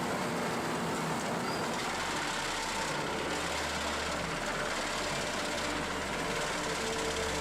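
Heavy industrial recycling machine running: a steady dense mechanical noise with a low hum that strengthens about two seconds in.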